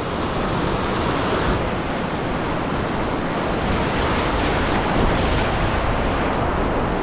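Ocean surf washing through shallow water, a steady rush of waves and foam close to the microphone.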